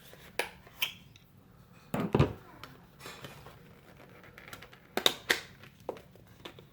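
Small clicks and clatter of an SSD and its hard plastic packaging being handled by hand, with a louder knock about two seconds in and another pair about five seconds in.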